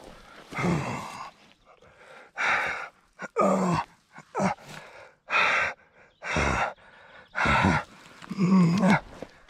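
A man breathing hard and groaning after crashing a trials bike: about eight heavy breaths, roughly one a second, several of them drawn out into low groans.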